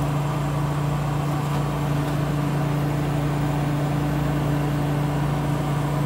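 Walk-in cooler evaporator fans running, a steady even hum with a low tone.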